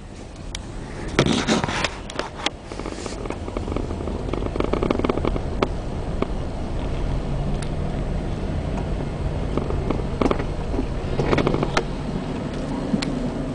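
Car engine running at low speed, heard from inside the cabin as a steady low rumble, with a few short knocks and rustles, the loudest about a second in.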